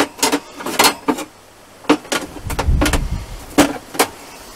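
Metal clanking and knocking as a grill rack is shifted inside a Weber Go Anywhere gas grill and set one level lower, about seven sharp knocks with a low thud a little past halfway.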